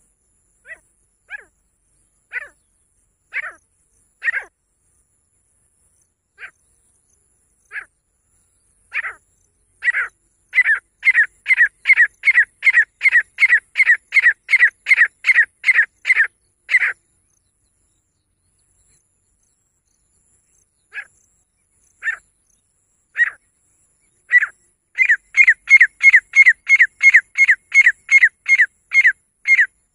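Female grey francolin calling: sharp, high notes that start spaced apart and grow louder and quicker into a rapid run of about three notes a second, break off for a few seconds, then build again into a second run.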